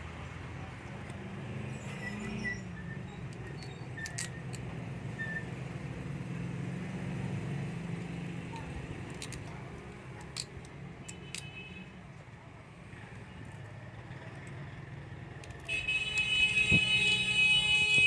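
Automatic slot-paper insertion machine for ceiling fan stators running: a steady low hum with occasional sharp clicks. About two seconds before the end a loud, harsh buzzing tone sets in.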